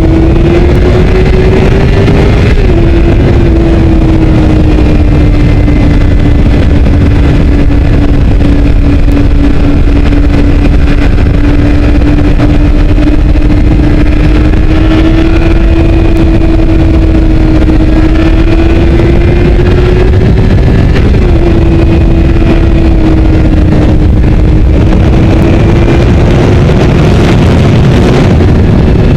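Honda CBR600RR inline-four engine running at high revs under way, heard from a camera on the bike behind its windscreen, with a steady rush of wind and road noise. The engine note climbs slowly and drops suddenly twice, about two and a half seconds in and again about twenty-one seconds in, as at an upshift.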